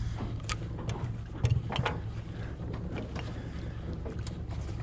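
A boat's outboard motor idling steadily, with a few short light knocks as a crab pot rope is hauled in by hand over the side.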